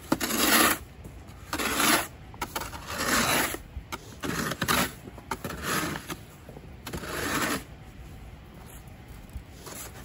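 Snow shovel blade scraping over packed snow and driveway pavement in repeated strokes, about six scrapes roughly a second apart, each under a second long, then a pause near the end.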